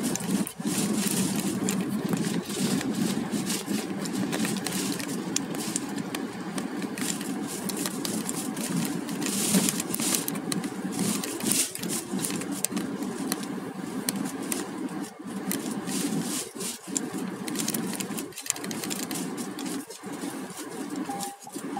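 A car driving, heard from inside the cabin through a phone's microphone: a steady engine and tyre hum, with frequent small clicks and rattles throughout.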